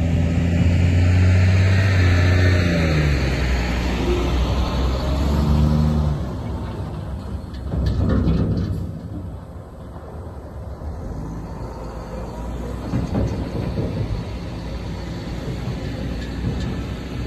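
2006 Sterling L7500 dump truck's diesel engine pulling away under load, loud at first with its pitch climbing and dropping as it shifts gears, then quieter and rougher as the truck moves off and swings back around.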